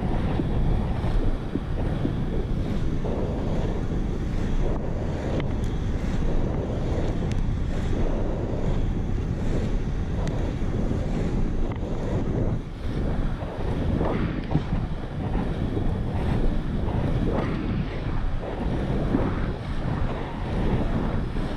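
Heavy wind noise buffeting an action camera's microphone as it moves with an inline skater at about 30 km/h, a fluctuating low rumble with no steady tone.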